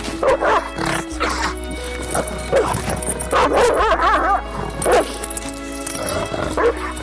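Two dogs barking and yipping in play, with a longer wavering whine about three and a half seconds in, over steady background music.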